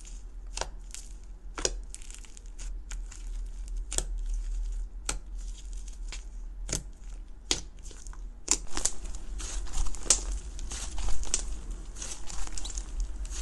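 Fingers pressing and squeezing crunchy white slime in a plastic tub: crackling and crunching with sharp pops scattered through, growing denser and louder about two-thirds of the way in.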